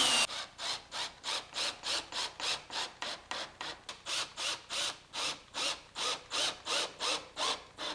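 An electric drill driving a wood screw slowly into a pine block: a rhythmic rubbing creak of the screw turning in the wood, about three times a second.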